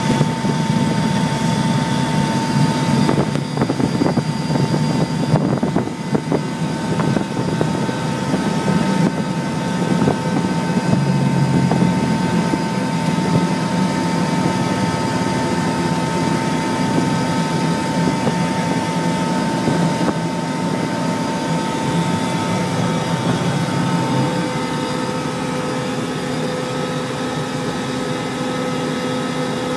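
T-1A Jayhawk jet trainer's twin Pratt & Whitney JT15D turbofans at take-off power, heard inside the cockpit through take-off roll and climb: a steady whine over a rushing roar of engine and airflow. About five seconds before the end the whine shifts lower and the sound eases a little.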